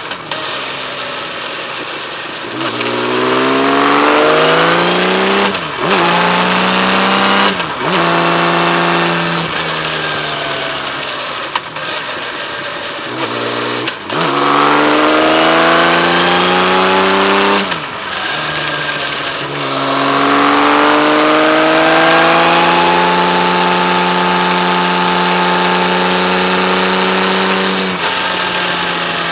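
Kawasaki Z1300's inline six-cylinder engine pulling hard through the gears, its pitch rising and dropping sharply at each of several gear changes. It then climbs again and holds a steady pitch at cruising speed before the throttle eases off near the end.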